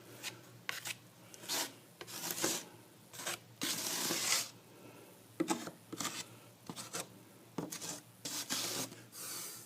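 A plastering tool scraping and spreading plaster over screw holes and cracks in a plaster cornice, in a run of irregular strokes of different lengths.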